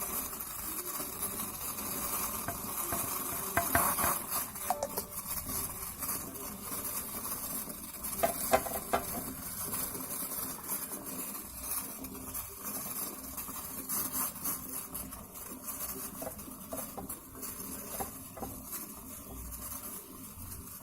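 A spoon scraping and knocking against the vessels as pounded herbs and spices are scraped into a pot of water at a rolling boil, which bubbles and hisses underneath. The loudest knocks come about four seconds in and again about eight to nine seconds in.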